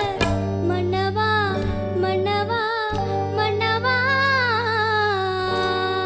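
A girl singing a slow Tamil film-song melody in long, ornamented held notes. A live band accompanies her with steady low notes, which drop out briefly about three seconds in and stop shortly before the end.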